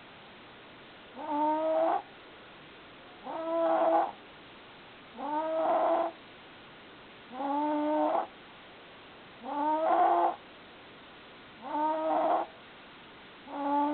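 Snoring in sleep: a short, high-pitched snore about every two seconds, each one under a second long.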